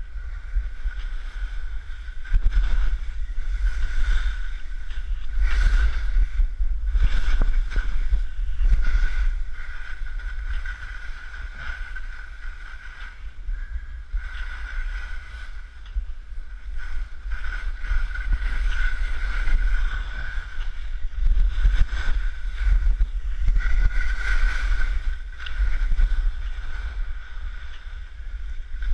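Wind buffeting a body-mounted camera's microphone during a fast downhill run through deep snow, with repeated swishes as the snow is cut on each turn.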